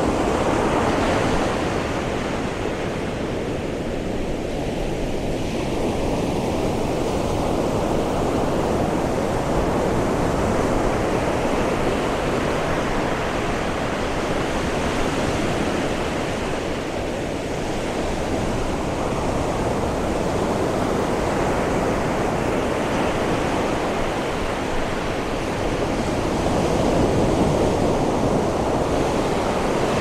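Ocean surf breaking and washing up a sandy beach: a continuous rush of water that swells and eases every several seconds as each wave comes in.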